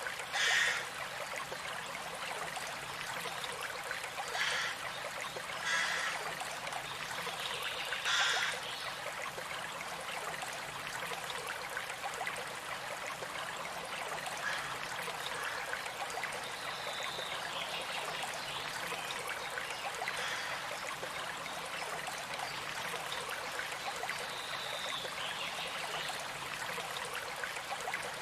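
Running stream water, a steady rush and trickle, with birds calling now and then: faint short whistles well into the stretch, and four brief louder bursts in the first nine seconds.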